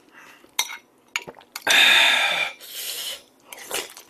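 A metal spoon clinks twice against a glass bowl. Then comes loud slurping of gamjatang (pork-bone soup) broth from the spoon, longest and loudest about halfway through, with shorter slurps after it.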